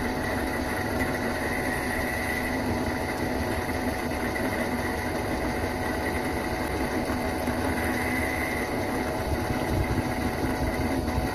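Mini metal lathe running at a steady speed, its motor and drive giving an even hum and whine.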